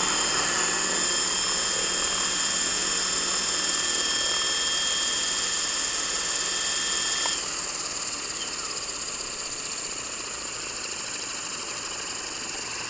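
Frenzy 600E electric RC helicopter on a 5S battery, its motor whining steadily while the main rotor turns. About seven seconds in, the motor tone cuts off suddenly and the level drops. A quieter rotor whir is left as the blades coast down.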